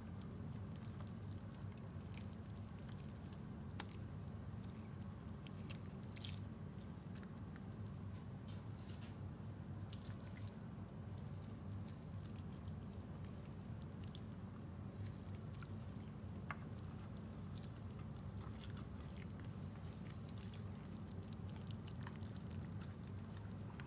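Faint wet squishes and small clicks from hands pressing and handling raw steaks in a pan, over a steady low hum.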